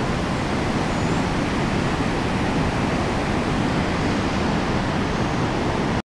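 Steady rush of a waterfall and whitewater rapids close by, an even noise heaviest in the low end.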